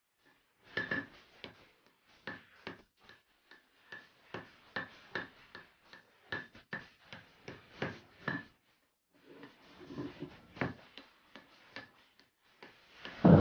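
Hand hammer striking a red-hot axe head on a wet anvil: sharp, irregular blows about two a second, each with a brief metallic ring.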